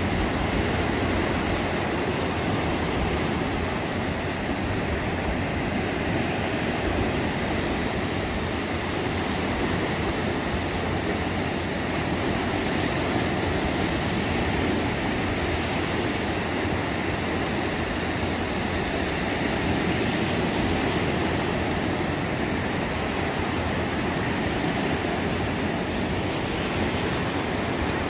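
Steady rumble of surf breaking on the beach mixed with wind buffeting the microphone, continuous and unchanging throughout.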